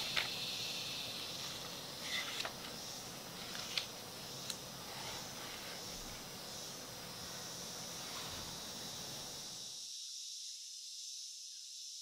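Faint, steady, high-pitched insect chorus of a rainforest ambience. A few light clicks and taps of the book being handled come in the first half, and the lower background hiss cuts off suddenly near the end while the insects carry on.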